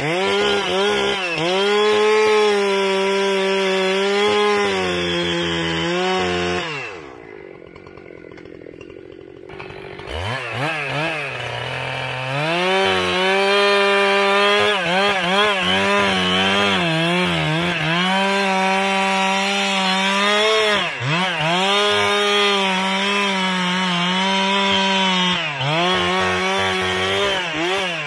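Old two-stroke chainsaw running at full throttle cutting into a tree, its pitch sagging and recovering as the chain loads up in the wood. About seven seconds in it drops to idle for a few seconds, then revs back up and cuts on, with brief dips in pitch later on.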